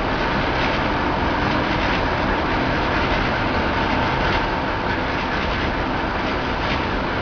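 Briquette ball press running: its motor and gear reducer turning the pocketed press rollers while pressed briquettes ride along the belt conveyor. A steady mechanical noise with a faint high whine and light irregular clatter.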